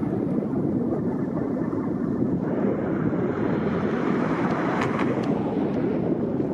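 Steady outdoor noise of road traffic on a bridge and wind on the microphone. A passing car fades away at the very start, and there are two faint clicks about five seconds in.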